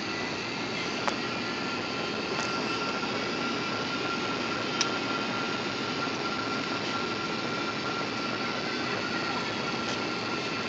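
Steady cabin noise of a jet airliner heard from a window seat over the wing while flying the approach to land: engine and rushing air, with a thin steady whine. Two small clicks sound, about a second in and near the middle.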